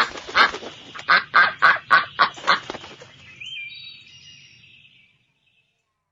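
Duck quacking: a rapid run of about nine loud quacks that stops about three seconds in. A faint high tone follows briefly.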